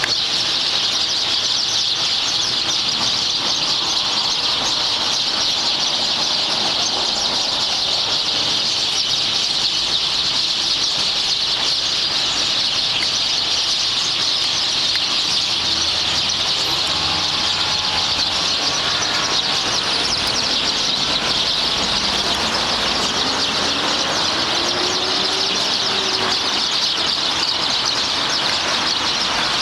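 Dense, unbroken chorus of chirping from a flock of several hundred small birds gathered to roost in street trees in the evening. Faint traffic passes underneath, with one rising engine tone past the middle.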